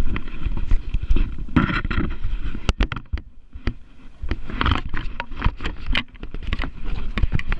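Camera handling noise: rubbing, knocks, scrapes and sharp clicks as the camera is moved about and set down on a bathroom counter.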